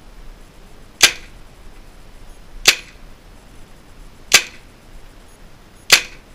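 Tippmann M4 HPA-powered airsoft rifle firing four single shots, about one and a half seconds apart, at its out-of-the-box setting of around 450 FPS.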